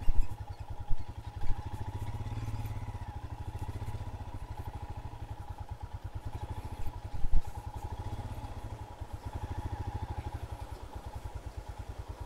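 Royal Enfield Himalayan's 411 cc single-cylinder engine thumping steadily at low revs as the motorcycle rides slowly over a rough dirt track. A few sharp knocks come through, the loudest pair about seven seconds in.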